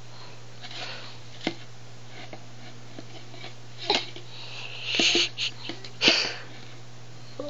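A few short clacks of plastic stacking rings knocking against the toy's post, with breathy sniffs and exhales, the loudest about six seconds in, over a low steady hum.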